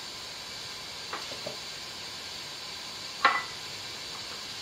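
Quiet kitchen with a faint steady hiss, a couple of light clicks, then one sharper clink about three seconds in, from kitchen utensils or containers being handled.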